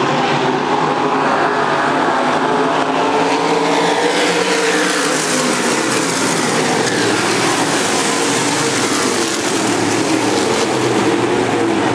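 A pack of semi late model dirt-track race cars running at racing speed, several engines at once, their pitch rising and falling as they accelerate and lift through the turns.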